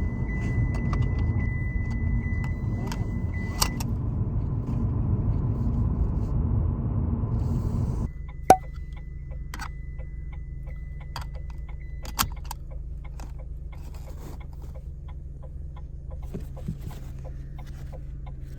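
Car seat belt warning tone sounding steadily over engine and road rumble in the car's cabin. It stops with a sharp click as the buckle latches a few seconds in, starts again with a click just after the rumble drops off, and stops with another latch click about three and a half seconds later. Further metallic clicks come from the buckle and extender being handled.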